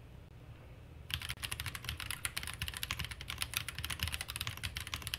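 Fast random typing on a stock, unmodded Feker Alice 80 gasket-mounted mechanical keyboard. A rapid stream of key clacks starts about a second in.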